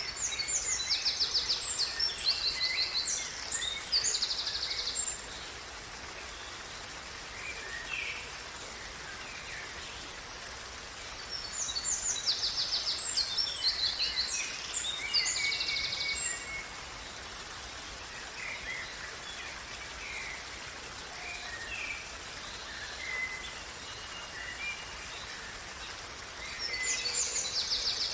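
Water running in a small stream, a steady hiss, with birds singing over it. One bird sings a loud phrase of fast trills three times (at the start, about twelve seconds in, and near the end), with softer chirps from other birds in between.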